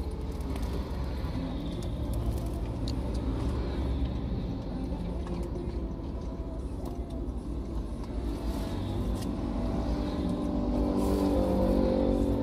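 Road traffic: cars and motorcycles passing with a steady low rumble of engines and tyres, one engine drawing nearer and getting louder near the end.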